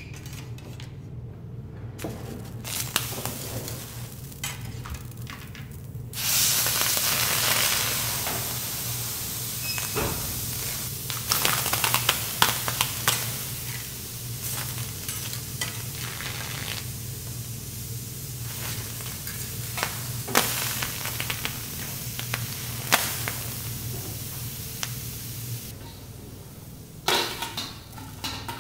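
Halved lobster sizzling on a hot steel teppanyaki griddle. The sizzle jumps up loudly about six seconds in, then eases to a steady sizzle, with sharp clicks of metal utensils against the plate now and then.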